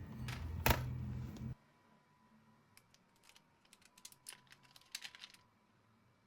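A low hum with one sharp click stops abruptly about a second and a half in. A few seconds of quick, light, uneven clicks follow, like typing on a keyboard.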